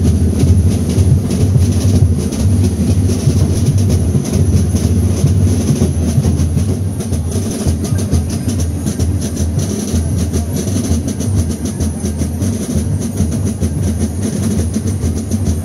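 Carnival drums beating a fast, steady rhythm for the Gilles' dance.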